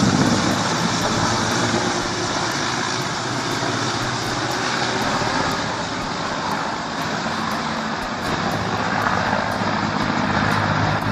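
Mi-17 twin-turbine helicopter flying overhead: a steady, loud rush of turbine and rotor noise with a low hum underneath.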